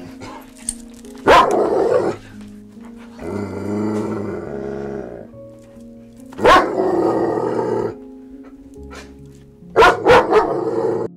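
Dogs barking: a few loud barks, with a softer, longer call between them, over light background music.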